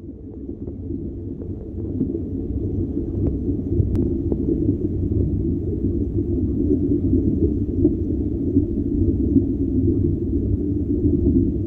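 Low, dense ambient drone that fades in over the first two seconds and then holds steady, with a few faint clicks about four seconds in.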